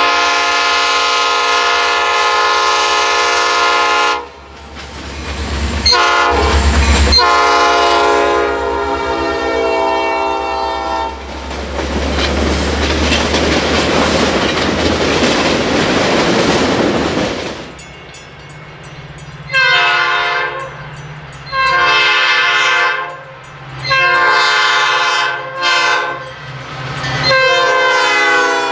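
Diesel commuter locomotive's multi-chime air horn sounding long blasts and a short one as the train approaches, then the rumble and clatter of the bilevel passenger cars rushing past. Then comes another series of horn blasts, long and short, over a low engine drone.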